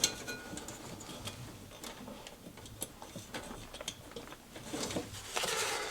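Faint, scattered clicks and taps of hands handling wires and small parts, with a sharper click right at the start.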